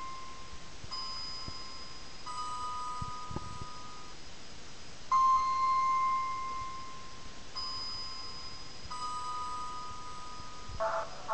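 A slow electronic melody of held, pure-sounding tones, one or two at a time, each lasting about one to two and a half seconds before the pitch changes, with the pattern repeating. A busier passage of music comes in near the end.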